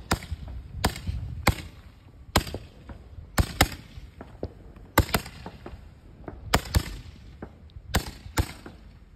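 Two handheld Roman candles firing, each shot a sharp pop. There are about a dozen pops at uneven spacing, a second or so apart and sometimes in quick pairs.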